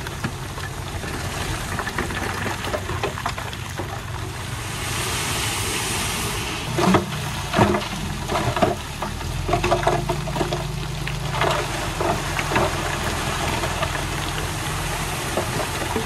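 Heavy diesel engine of a construction machine running steadily. About five seconds in there is a short hiss, then a run of sharp knocks and clanks for a couple of seconds. From about nine seconds in, the engine note grows stronger and holds.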